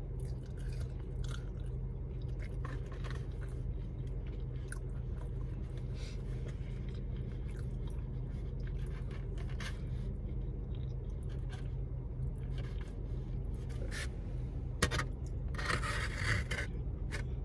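A person eating loaded fries: quiet chewing with small clicks and scrapes, over a steady low hum, and a louder rustling scrape near the end.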